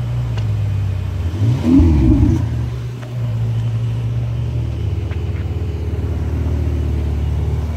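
Ferrari supercar engine idling, revved up and straight back down once about a second and a half in, then running steadily with its note slowly climbing as the car moves off.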